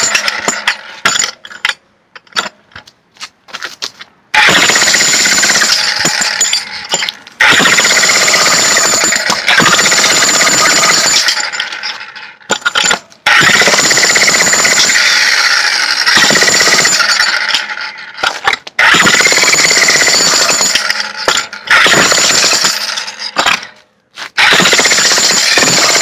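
Corded electric Hercules demolition hammer (jackhammer) chiselling into a concrete slab, loud and continuous in runs of several seconds, stopping briefly several times between runs.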